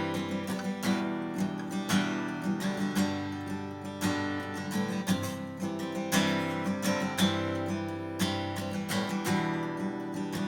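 Martin CEO-7 acoustic guitar played solo, with chords strummed and picked in a steady rhythm and the notes ringing on between strokes.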